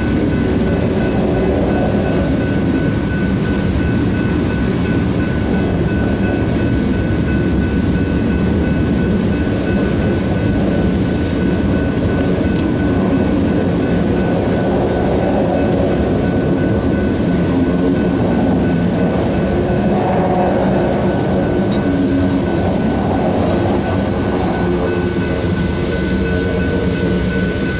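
Ballast hopper cars of a freight train rolling past at a steady pace, wheels clattering over the rails with a constant rumble, and a thin steady high tone running over it.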